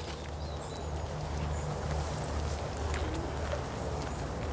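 Pigs grunting and snuffling in their straw pens as they finish feeding, a low, uneven grunting with no coughing or sneezing, the sound of contented, healthy pigs. A few faint bird chirps come over the top.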